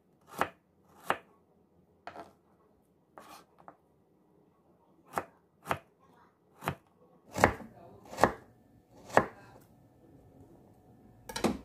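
Kitchen knife chopping fish balls into pieces on a cutting board: about a dozen single chops at an uneven pace, the loudest strikes coming in the second half.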